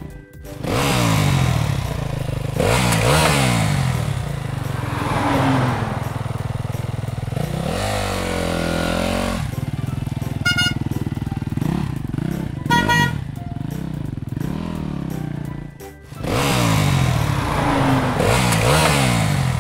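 Small dirt-bike engine revving up and down again and again, with a short dip in sound about sixteen seconds in. Two short horn honks come in the middle.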